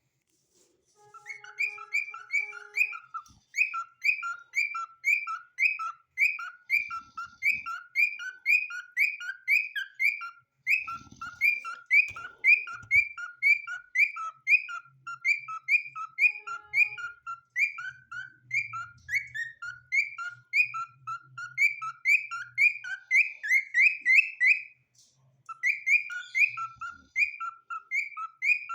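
Cockatiel calling in a long, rapid series of short whistled chirps, a lower and a higher note alternating at about two pairs a second, with a brief break near the end.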